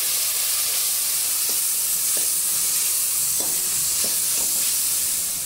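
Ground tomato, garlic and green chilli paste sizzling steadily in hot oil in a kadhai, just poured in on top of frying onions and spices. A steel ladle stirs it, with a few short scrapes and taps against the pan.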